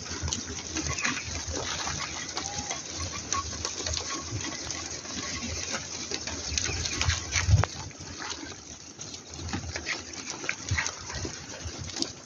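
Many hooves of a large flock of sheep and goats pattering and shuffling on a dirt road, a dense run of small clicks and thumps, with a faint bleat about three seconds in.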